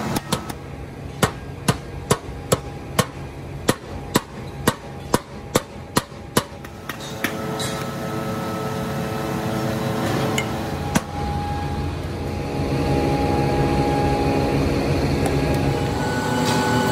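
Hand hammer striking in a steady run of about fifteen sharp blows, a little over two a second, while foundry sand is packed around a gear pattern in a moulding flask. The blows stop about seven seconds in, leaving a steady workshop hum that grows louder near the end.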